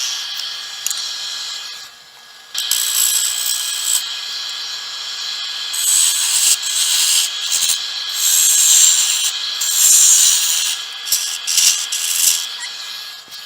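Hollowing tool scraping into a spinning cedar blank on a wood lathe: a steady cut that breaks off briefly about two seconds in and then resumes, with a faint steady tone beneath.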